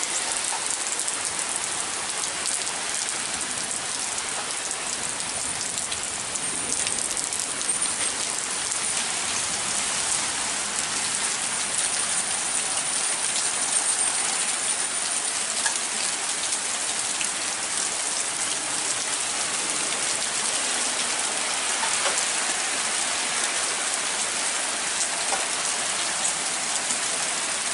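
Steady rain falling, an even hiss of water with single drops ticking close by now and then.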